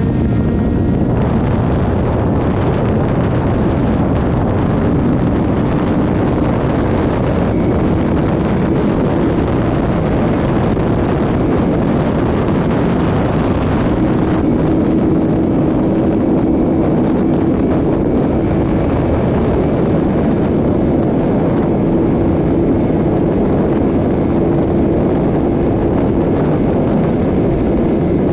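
Kawasaki Z750 motorcycle cruising at steady speed: the engine holds a steady drone under heavy rushing wind noise on the microphone.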